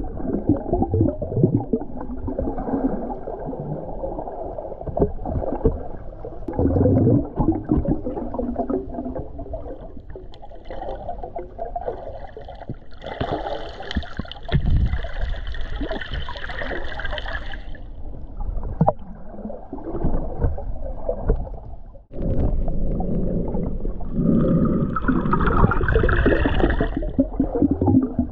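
Muffled underwater sound picked up by a camera held below the surface: churning, gurgling water. Two brighter, louder stretches come around the middle and near the end.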